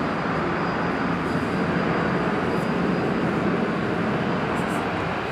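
Jet engines of a Boeing 757-300 running at takeoff power during the takeoff roll: a loud, steady rushing noise.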